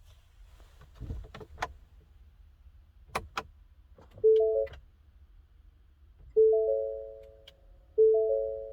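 A few sharp clicks, then an electronic three-note warning chime inside a Ford Expedition, each chime fading out and repeating about every second and a half to two seconds.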